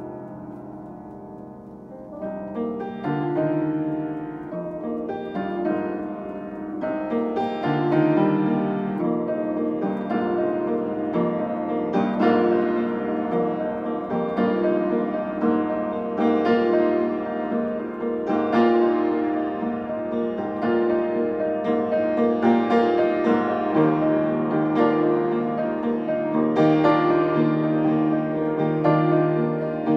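Grand piano played solo in an improvised piece: chords and melody notes struck and left ringing, soft for the first two seconds, then louder and busier.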